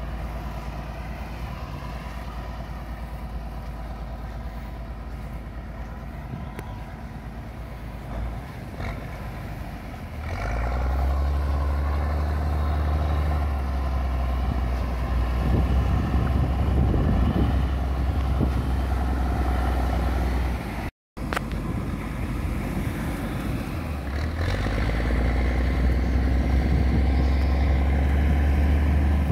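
Diesel engine of a Case four-wheel-drive tractor running steadily, then revving up and growing louder about ten seconds in, with a brief cut-out in the middle.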